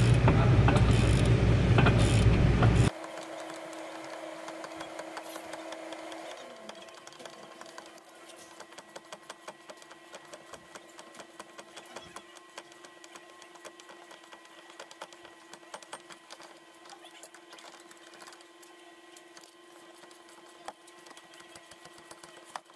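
A loud rushing noise cuts off suddenly about three seconds in. Then a hand ratchet wrench clicks rapidly as a caliper bracket bolt is backed out of the rear brake knuckle, over a faint steady hum.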